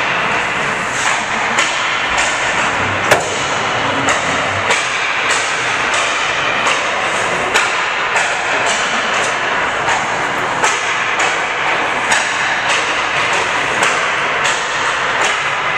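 Ice hockey skating and puck handling on a rink: a steady scraping hiss of skate blades on the ice, with sharp knocks of stick on puck about twice a second.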